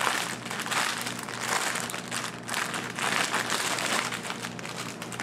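Clear plastic packaging crinkling loudly and continuously as hands work the bag open and pull out a bundle of small plastic bags of diamond-painting drills.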